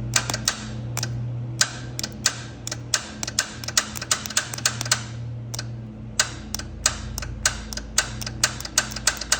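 Sharp, irregular clicks, about two or three a second, from the starter circuit as the starter is energised through a jumper cable and the engine does not crank. A steady low hum runs underneath.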